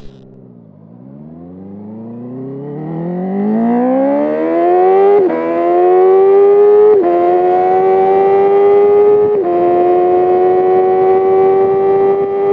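Sport motorcycle engine accelerating hard through the gears. The revs dip briefly at the start, then climb in one long pull. Three quick upshifts come about five, seven and nine and a half seconds in, each a sudden drop in pitch, and the engine note climbs more slowly in each higher gear.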